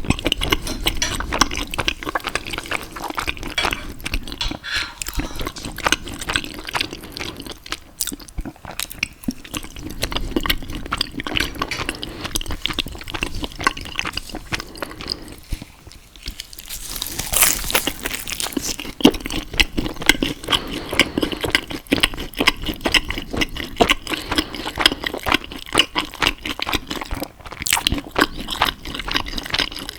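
Close-miked eating sounds: continuous wet chewing with sticky, crackling clicks of pasta and pizza in the mouth. The chewing pauses briefly twice and grows busier and brighter for the second half.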